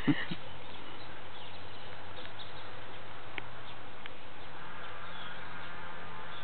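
Dogs play-fighting: a couple of short growls right at the start. After that only a steady background hiss with a few faint ticks, and faint bird calls near the end.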